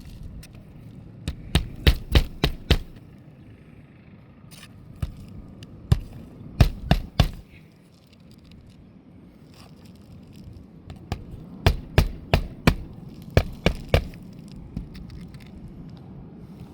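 Hammer driving roofing nails through a new shingle: three runs of quick, sharp blows, roughly five to eight strikes each, with pauses of a few seconds between.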